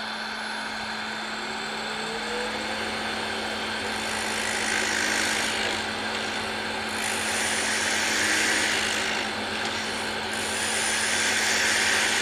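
Wood lathe running with a steady motor hum and a rising whine about a second in. From about four seconds a turning tool cuts the spinning square scrap of wood round, a rough cutting hiss that swells three times as the tool passes along the blank.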